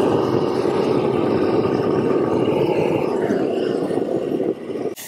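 Hand-held gas roofing torch burning with a steady roar as its flame heats the underside of a peel-and-stick SBS rubber roofing membrane to make it bond. The flame noise drops away near the end.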